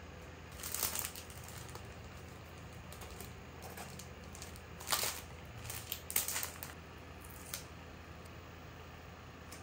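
Paper and sticker backing being handled: a few short, separate rustles and crinkles, the loudest about five and six seconds in, over a low steady hum.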